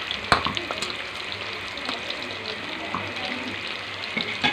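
Tofu frying in hot oil in a steel wok: a steady sizzle full of small crackles and pops. A sharp tap stands out about a third of a second in, and another near the end.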